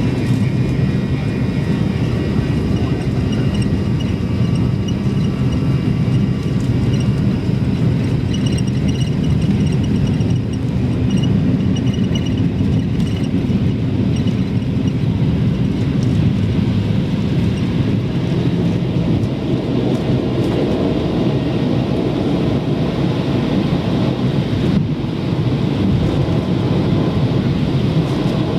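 Cabin noise of a McDonnell Douglas MD-88 with its Pratt & Whitney JT8D engines running: a loud, steady low rumble with faint whining tones above it.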